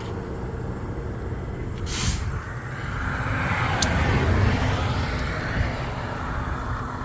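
Steady low rumble of a running vehicle engine, with a short hiss of air about two seconds in and a brief sharp tick near four seconds.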